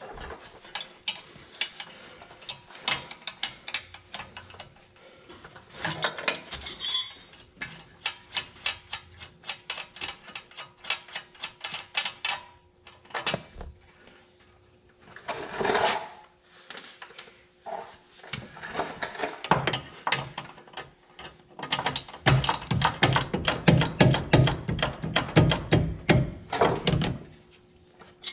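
Ratcheting wrench clicking in runs of quick strokes as a bolt is backed out of the front hub, with metal tool clinks between runs. The clicking turns faster and heavier near the end.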